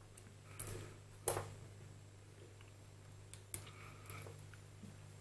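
A few light metal clicks and knocks from steel lathe topslide parts being handled and fitted together, the loudest about a second in, over a faint steady hum.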